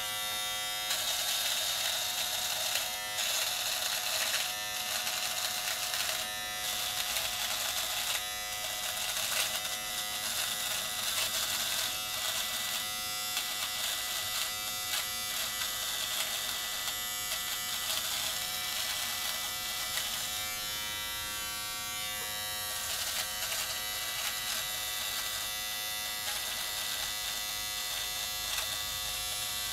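Philips Norelco MG9000 cordless all-in-one trimmer, fitted with its body-trimmer head without the skin guard, running as it cuts face stubble. It makes a steady buzz that flickers slightly now and then.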